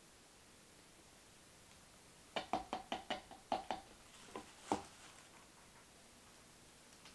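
A quick run of about eight sharp knocks over two and a half seconds, the last the loudest: a paint cup knocked against the painting rack and work surface while it is emptied and set down.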